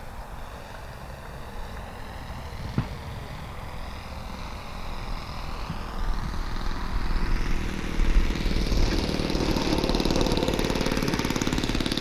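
Model airplane's OS 52 four-stroke glow engine running with a wavering pitch, faint at first, then growing much louder from about halfway as the plane comes in low and close, loudest about eight seconds in. One sharp click about three seconds in.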